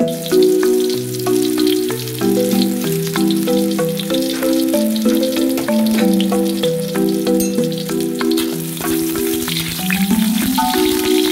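Oil sizzling and crackling in a hot wok as chopped garlic fries, with a metal spoon stirring it near the end.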